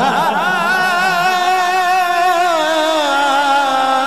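A male naat singer holding one long sung note with a wavering vibrato, the pitch sinking slowly over the last couple of seconds.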